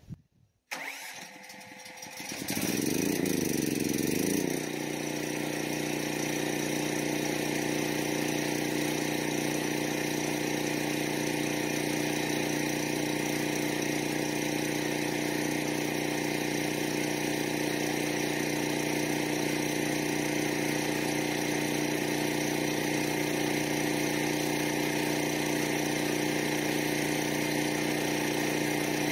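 Portable generator started by remote start: the engine catches about two seconds in, its speed wavers for a couple of seconds, then it settles into a steady run while powering the well pump.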